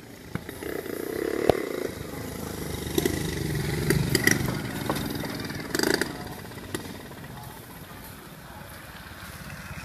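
An engine running and passing by, growing louder over the first four seconds and fading away after about six. Several sharp clicks sit on top, the loudest about a second and a half in.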